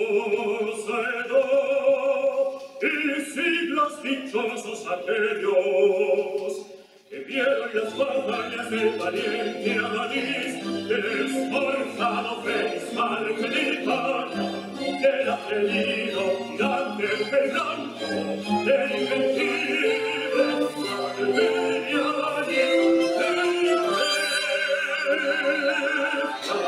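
Opera music: singing with wavering held notes over instrumental accompaniment. It breaks off briefly about seven seconds in, then resumes with a lower bass line underneath.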